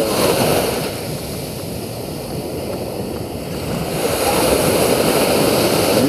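Sea surf breaking and washing up a sandy beach, a steady rush of foam that swells louder again about four seconds in.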